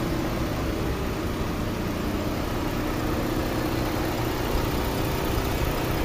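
BMW E46 engine idling steadily with no misfire, running again now that a failed ignition coil relay that left it cranking with no spark has been replaced.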